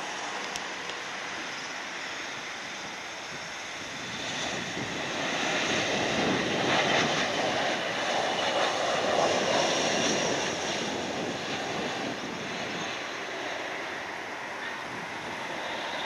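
Jet engines of a Boeing 737-800 landing and passing close by, a rushing jet noise that swells about four seconds in, is loudest for a few seconds, then slowly fades as the airliner rolls out.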